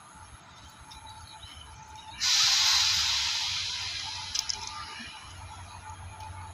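Electric freight locomotive approaching with a low rumble. About two seconds in, a sudden loud hiss of released air starts and fades away over the next few seconds.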